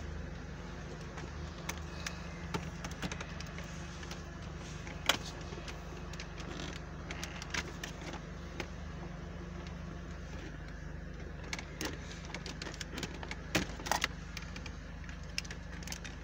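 Scattered plastic clicks and knocks from a Land Rover L322's centre-console trim and its wiring connectors being handled during removal, over a steady low hum. One sharp click about five seconds in and a few more close together near the end.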